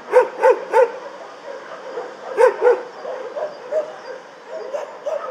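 Shelter dogs barking in a kennel chorus: three loud barks near the start and two more a little past halfway, over many fainter barks and yips.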